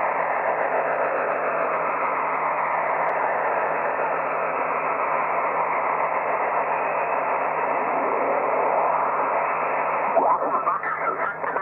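Yaesu FT-7B transceiver receiving on the 40-metre band: steady static hiss from its speaker. About ten seconds in, a garbled sideband voice starts to come up as the main tuning dial is turned.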